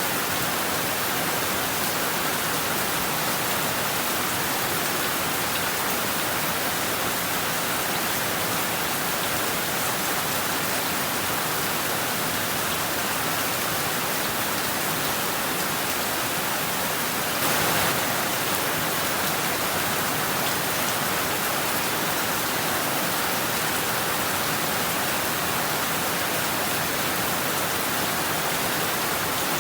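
Heavy rain falling steadily, a dense, even hiss, with a brief louder swell about halfway through.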